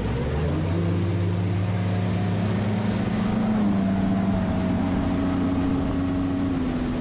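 Outboard motor of a Skeeter FXR 21 bass boat running at low speed, over the rush of the hull through the water. The engine note picks up about half a second in, climbs gently for a few seconds, then holds steady.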